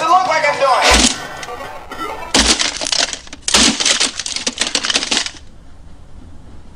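Music from a clock radio cuts off with a heavy thump about a second in, followed by two long crashing, breaking noises as the plastic clock radio is smashed, then quieter noise near the end.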